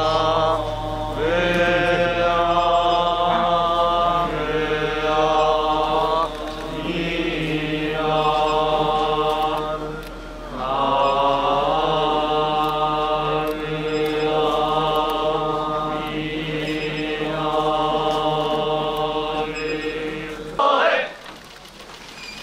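Buddhist monks chanting in unison in long, drawn-out phrases that pause briefly every few seconds, over a steady low hum that drops away about 21 seconds in.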